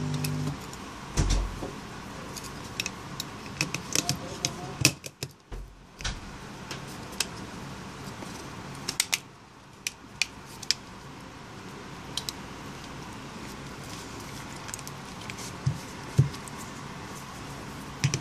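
Light plastic clicks and taps as a BlackBerry Z10's back housing is pressed down and snapped into place on the phone body, with finger handling in between; the clicks come irregularly, a few louder ones standing out.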